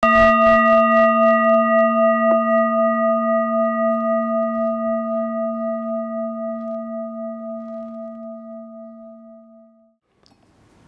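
Tibetan singing bowl struck once, ringing with a low hum and several higher overtones that waver slowly as it fades out over about ten seconds.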